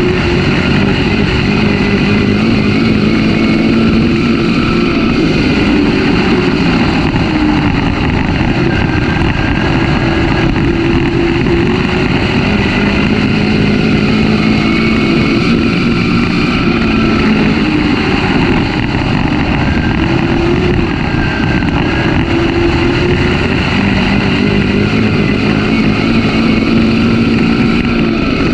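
Dirt-track race car engine running hard, heard from inside the car's cockpit, its pitch rising and falling over and over as the car circles the oval.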